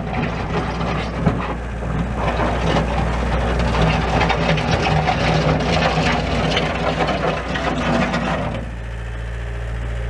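1998 Gehl SL5365DX skid steer's Deutz four-cylinder diesel engine running under load as the machine drives over gravel. About a second and a half before the end the broad noise drops away, leaving a quieter, steady low engine hum.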